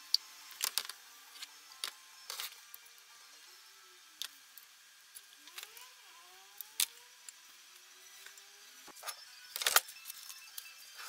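Metal hand tools and parts clinking and knocking in scattered sharp clicks, with a louder cluster of knocks near the end.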